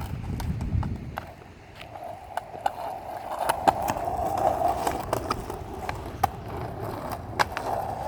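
Skateboard wheels rolling over pavement: a steady rolling rumble with scattered sharp clicks and clacks.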